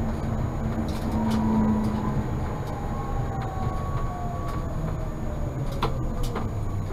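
Tatra T3 tram running between stops: a steady rumble of wheels on rails with thin whining tones that slowly fall in pitch, and a couple of sharp clicks near the end.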